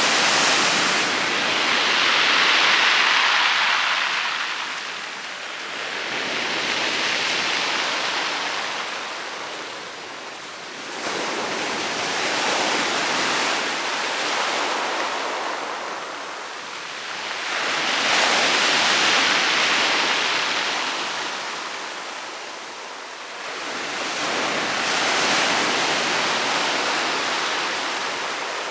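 Sea waves breaking on a pebble beach, the water crashing and washing over the stones in slow swells. About five waves come in, one every five to six seconds.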